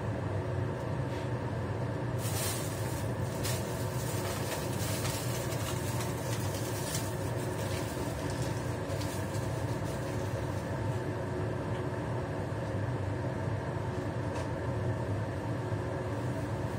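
Steady hum and rush of a kitchen range hood fan running over a lit gas burner, with a few faint crackles about two to four seconds in from the covered pan heating.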